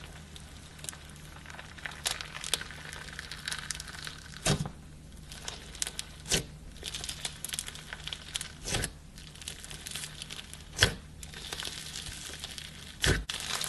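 Slime being squished and worked by hand, crinkling and crackling steadily with about five louder sharp pops, over a faint steady low hum.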